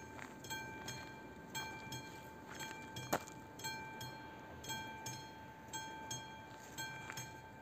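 Level-crossing warning bell of an AŽD 71 crossing signal ringing, a bell-like strike about once a second with a lingering tone between strikes, sounding because the crossing is active. A single sharp click about three seconds in is the loudest moment.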